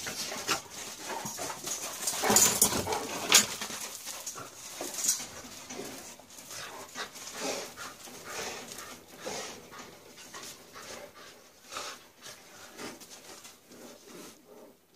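A Dogo Argentino and a Patterdale terrier wrestling: their hard breathing and scuffling come in irregular short bursts, with a few sharp louder noises two to three and a half seconds in, then growing sparser and quieter.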